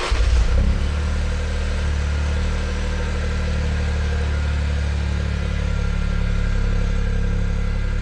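Toyota GR Yaris's turbocharged 1.6-litre three-cylinder engine catching with a brief flare of revs, then settling into a steady idle.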